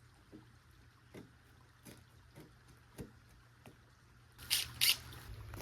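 A few light, sharp knocks spaced unevenly, then two short, loud rasping noises about four and a half seconds in, from handling wood and tools during building work.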